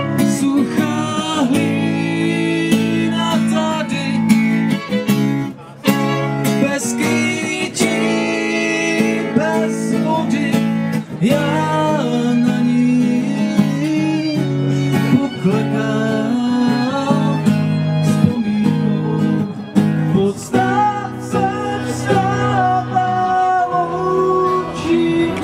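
Live acoustic band music: guitar accompaniment with a melody line above it that wavers in pitch, playing on steadily through an instrumental stretch of a song.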